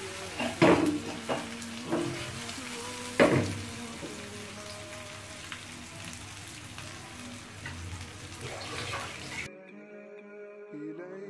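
Fish steaks frying with onions and chillies in a pan on a gas burner, a steady sizzle with a few sharp knocks as the pan is shifted on the grate. About nine seconds in the sizzle cuts off and music takes over.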